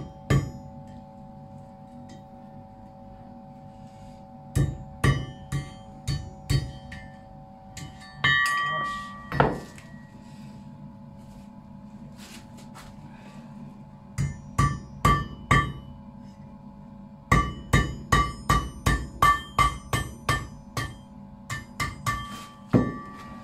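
Blacksmith's hammer striking work on an anvil in several runs of quick blows, each blow ringing briefly, with short pauses between the runs. A steady hum runs underneath.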